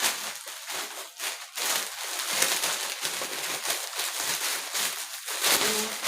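Packaging and dress fabric rustling and crinkling in uneven handling sounds as the dresses are unpacked.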